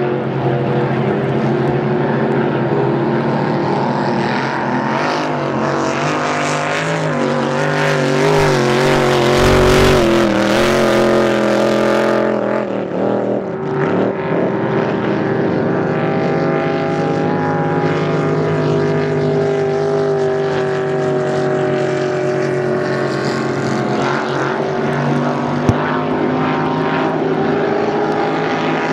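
Engines of two V-drive race boats, a K-boat and a Superstock boat, running hard at speed together: a loud, steady multi-pitched drone that wavers slightly as they turn. From about eight to twelve seconds in, a louder rushing noise rises over the drone, then falls away.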